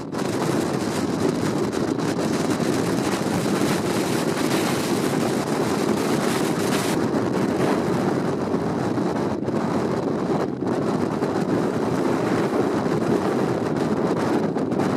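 Strong storm wind buffeting the microphone over the rush of a rough sea, a steady, dense noise with no let-up.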